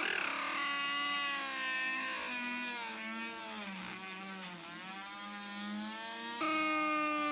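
An electric power tool's motor running with a steady whine that drops in pitch as it is pressed into the work and slows under load. Near the end it jumps back to full speed.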